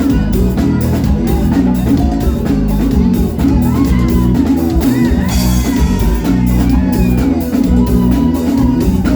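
Live forró band music played loud, with a steady drum-kit beat.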